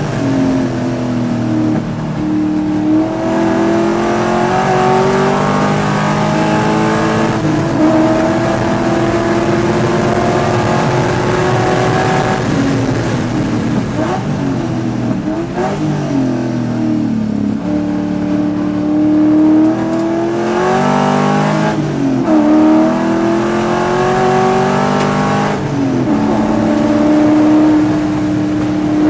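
Race car engine heard from inside the cockpit under hard acceleration, its pitch climbing through each gear and dropping sharply at every upshift, with a run of quick downshifts and throttle blips about halfway through for a corner.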